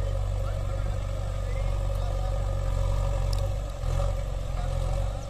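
Diesel engine of a backhoe loader running steadily as the machine drives along, with a brief dip and change in the engine note near the end.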